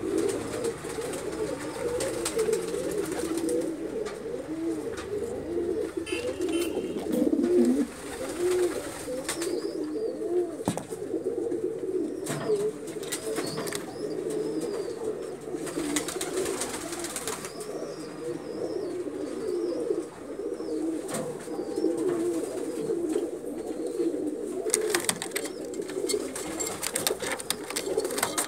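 Domestic fancy pigeons cooing on and on, several coos overlapping in a low, wavering drone. Faint higher chirps and a few short clicks come through now and then.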